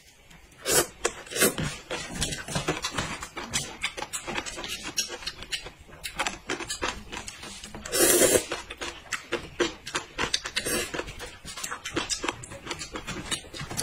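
Close-up eating sounds of noodles being eaten: many small wet smacks and clicks of chewing, with one louder, longer burst about eight seconds in.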